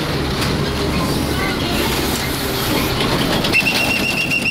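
A large truck's engine rumbling as it moves past close by, amid street traffic noise. Near the end a steady high-pitched squeal sounds for about a second and stops suddenly.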